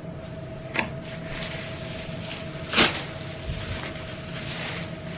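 A thin white sheet rustling as it is shaken out and spread over a wooden table, with one loud flap about three seconds in.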